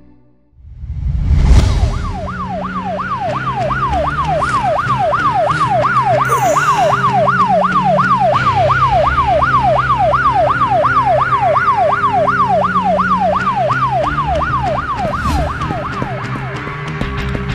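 Emergency siren in a fast yelp, its pitch sweeping up and down about three times a second. It starts right after a deep boom about a second and a half in and fades near the end, over a low droning music bed.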